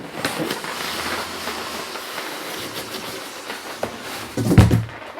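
Cardboard packaging being handled and pulled open: continuous rustling and scraping, with a couple of heavier thumps near the end.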